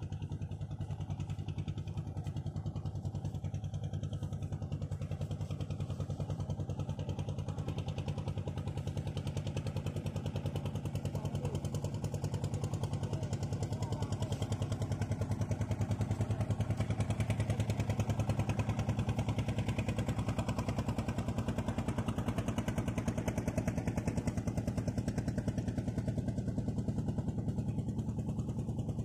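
Engine of a small wooden motor fishing boat running steadily as it goes past, a low rapid putter that grows a little louder about halfway through.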